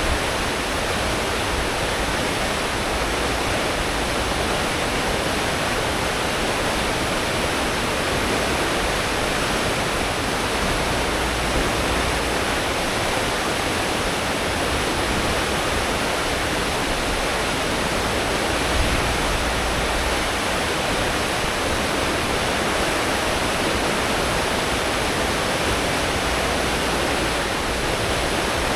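Steady rushing churn of a cruise ship's wake at full speed, seen from the stern, with a low rumble from the engines and propellers underneath.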